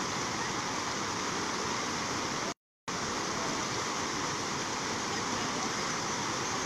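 Steady rushing of a swollen, flooded river's muddy water flowing fast past the bank. The sound cuts out completely for a moment about two and a half seconds in.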